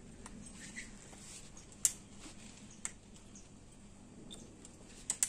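A few short, sharp metal clicks of a small open-end wrench and hand handling against a Dahon folding bike's handlepost hinge. The loudest click comes about two seconds in, with two close together near the end.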